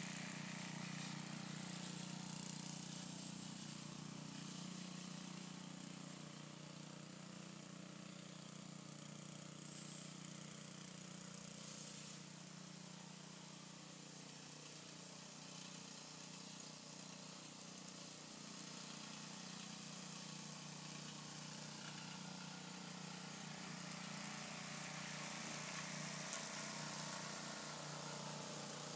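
Faint, steady running of an old walk-behind lawn mower's small petrol engine under mowing load. It fades a little in the middle and grows louder again near the end as the mower comes back.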